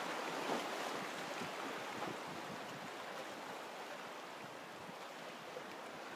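Small waves washing over shoreline rocks at low tide: a steady hiss of water.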